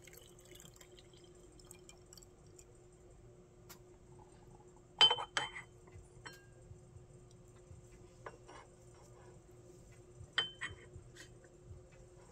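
Teaware clinking: two sharp clinks about five seconds apart, each ringing briefly, with a few lighter taps between, over a faint steady hum.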